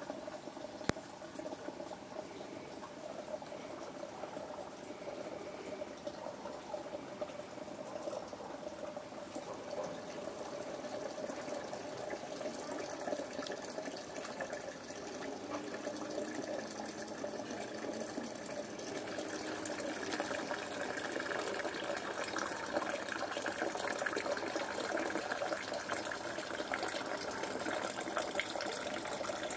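Steady sound of running, splashing water, growing somewhat louder in the second half.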